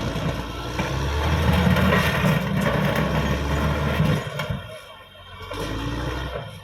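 Caterpillar D6R XL bulldozer's diesel engine running steadily under load, then dropping off sharply about four and a half seconds in before partly picking up again.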